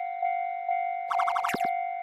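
Japanese railroad-crossing warning bell ringing its steady kan-kan, about two strikes a second. About a second in, a quick cartoon sound effect of rapid pips ends in a falling swoop.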